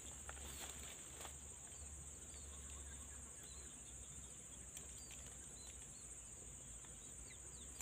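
Faint rural ambience: a steady, high-pitched insect drone with many short, faint bird chirps scattered through it.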